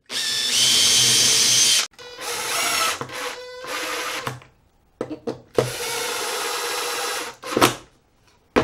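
Cordless drill boring through an aluminum angle into a wooden block, in several runs of a steady motor whine separated by short pauses. The first and longest run rises in pitch as it spins up.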